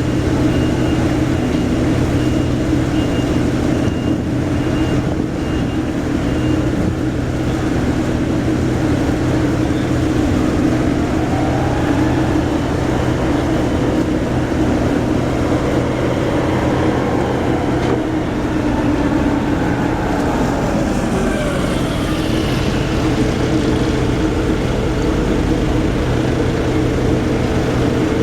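Large engine or machinery running steadily with a deep hum, with a fainter tone that rises and falls about halfway through.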